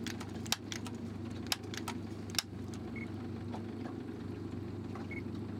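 Boat engine idling with a steady low hum, broken by three sharp clicks about a second apart in the first half, and two short high chirps later on.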